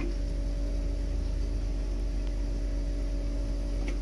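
A steady machine-like hum: a constant low rumble with a level drone over it and no distinct events.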